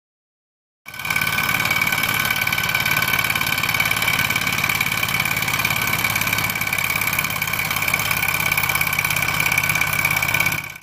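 Two-cylinder gamma-type Stirling engine model running steadily under alcohol-burner heat, driving a small LED generator by belt: a fast, even mechanical chatter with a steady high whine over it. It cuts in about a second in.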